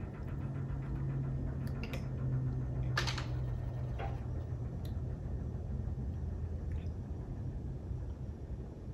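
Espresso crema being tasted from a spoon: a brief slurp about three seconds in and a few light clicks of the spoon against the glass, over a low steady hum.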